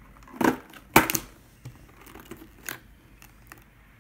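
Hard plastic lid of a toy case being pried open: a short rasp, then a loud, sharp plastic snap about a second in, and a softer click later.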